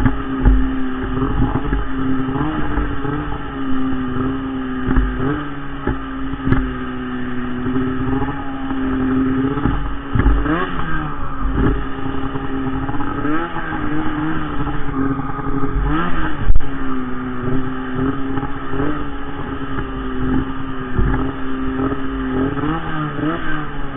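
Arctic Cat M8000 snowmobile's two-stroke twin engine running at high revs, its pitch dipping and climbing back again several times as the throttle is worked through turns in deep powder. Low thumps on the microphone come and go throughout.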